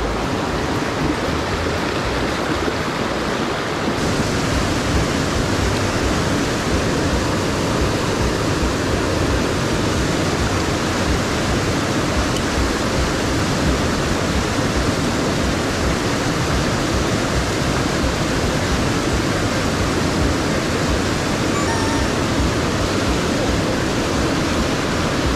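Rushing water of a mountain headwater stream: a steady, full hiss whose upper part grows louder about four seconds in.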